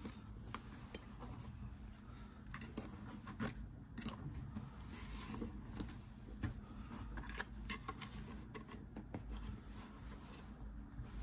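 Small precision screwdriver working tiny screws out of the aluminium casing of an Apple USB SuperDrive: faint metal-on-metal scratching with scattered small clicks.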